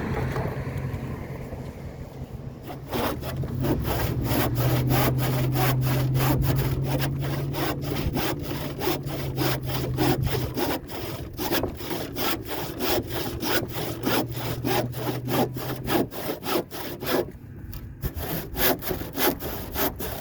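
Handsaw cutting through a wooden board with fast, even back-and-forth strokes. The strokes pause briefly near the end, then a few last strokes finish the cut.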